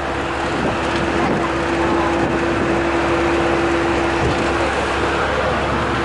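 Inside a moving bus: steady engine and road noise with a low rumble and a steady droning tone that weakens a little near the end.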